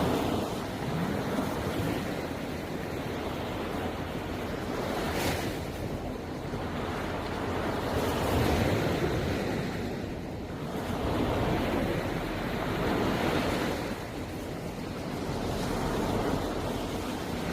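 Sea waves breaking and washing on the shore, the surf swelling and easing every few seconds, with wind rumbling on the microphone.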